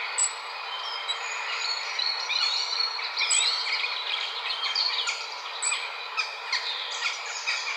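Recorded European robin song played through a tablet's speaker: quick high-pitched chirps and short trills, one after another, over a steady hiss.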